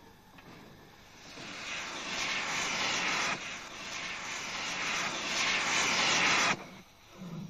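Steam locomotive venting steam: a loud hiss that builds up, dips once about midway, swells again and cuts off suddenly near the end.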